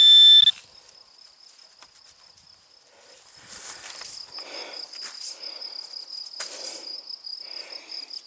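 A metal-detecting pinpointer beeps once with a steady high tone for about half a second at the start, signalling the coin in the hole. From about three seconds in, crickets chirp steadily with a continuous high trill, over soft rustling and scraping as soil is handled and rubbed off the coin.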